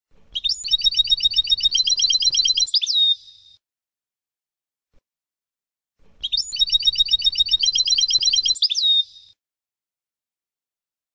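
European goldfinch song in the Palestinian 'Abu Khalil' style: a rapid trill of about ten high notes a second, ending in a sliding note. The same three-second phrase sounds twice, with dead silence between, as a looped recording.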